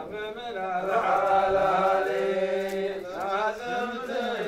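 Male voices chanting a line of Arabic folk poetry in a slow, drawn-out melody, the notes held long and bending.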